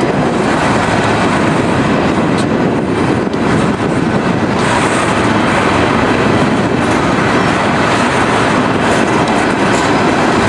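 Freight train of tank cars rolling past, a loud, steady rumble of steel wheels on the rails.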